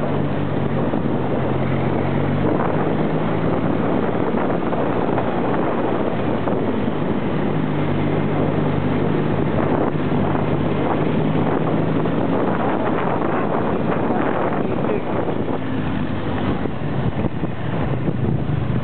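Small quad bike (ATV) engine running under way, its note shifting up and down a little with the throttle, with wind rushing over the microphone.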